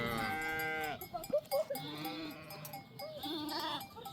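Sheep bleating: one long call about a second long, then several shorter bleats.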